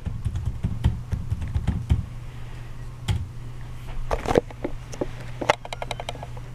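Typing on the HP Pavilion 14 Chromebook's keyboard: irregular key clicks, with a quick run of keystrokes near the end.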